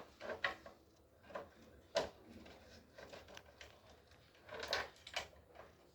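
Scattered clicks and knocks of screws being taken out and the air conditioner's plastic casing being handled, with one sharp knock about two seconds in and a small cluster near the end.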